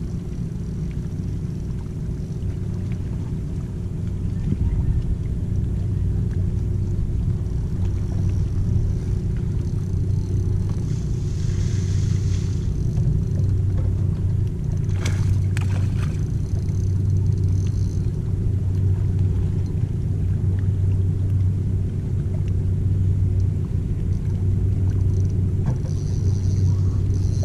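A steady low engine drone with a constant hum, growing a little louder about four seconds in. A brief hiss comes near the middle, followed by a few sharp clicks.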